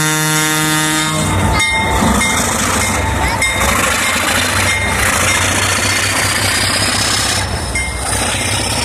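Diesel locomotive horn sounding and cutting off about a second in. Then the Alco RS-32 locomotives' V12 diesel engines running as the train moves, with steady rail and wheel noise.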